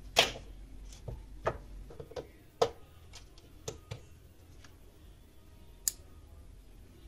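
Scattered small plastic clicks and taps from hands handling wires, connectors, a battery holder and a rocker switch. There are about eight separate clicks at uneven intervals, the loudest just after the start and a sharp, high one near the end.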